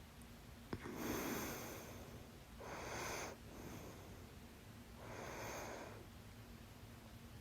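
A person with hiccups breathing softly between hiccups: three quiet, noisy breaths a couple of seconds apart, with a small click just before the first.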